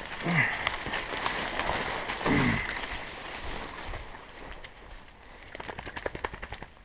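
Leafy branches and brush swishing and rustling as a person pushes through dense undergrowth, with two short, low, falling grunt-like sounds in the first half. Twigs crack and dry leaf litter crunches underfoot with quick snaps in the second half.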